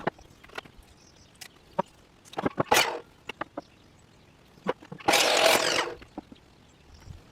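Carpentry on a 2x4 wood frame: scattered knocks and clatters of lumber and tools. Two short rasping bursts come a little over two seconds in, and a harsh burst of noise about a second long comes near five seconds in.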